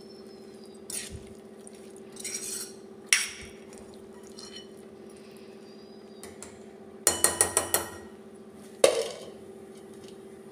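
A metal spatula knocks and scrapes against a stainless steel pan while spiced cauliflower is stirred, with a quick run of clinks about seven seconds in and a single sharp clank near nine seconds. A steady low hum runs underneath.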